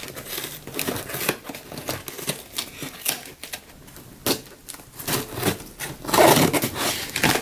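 Scissors slitting packing tape along the seams of a cardboard box: a run of scratchy, crackling cuts and small taps. About six seconds in comes a louder burst of cardboard rustling as the flaps are worked open.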